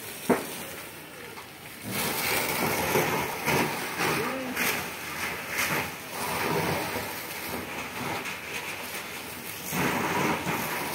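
A large house fire burning with a steady noisy rush and crackling, while a fire hose sprays water onto it. A single sharp crack comes just after the start.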